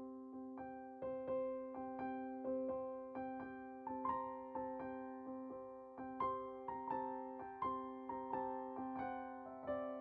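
Background music: a gentle piano melody with a held low note and evenly paced notes, each fading away after it is struck.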